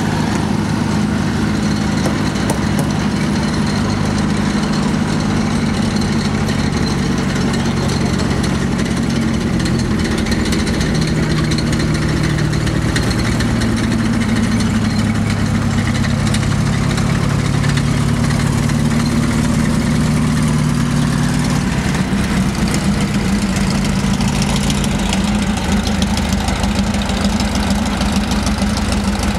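The 18-litre Ford GAA V8 engine of an M7B1 Priest self-propelled howitzer running steadily as the tracked vehicle drives past at low speed, its pitch shifting a little now and then, with the steel tracks clattering.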